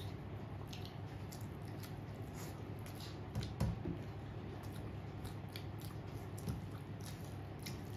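A person chewing a mouthful of rice and curry, with many small wet mouth clicks, over a steady low hum. There is one louder thump about three and a half seconds in.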